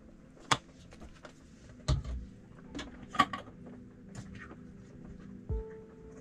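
Scattered clicks and knocks of kitchen things being handled, among them a plastic ketchup squeeze bottle, over a faint steady hum. A few notes of music come in near the end.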